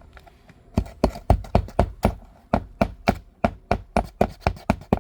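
Hand hammer striking in quick repeated blows on a roof, about four a second with a short break near the middle, working at a nail under a lifted asphalt shingle.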